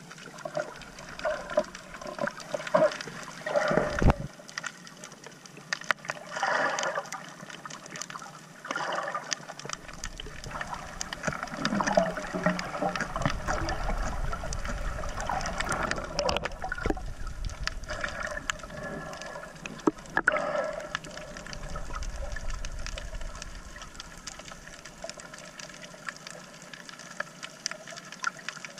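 Muffled water sounds picked up by a camera held underwater while snorkeling: irregular sloshing and gurgling, with a sharp knock about four seconds in and another near twenty seconds. A low rumble runs through the middle stretch.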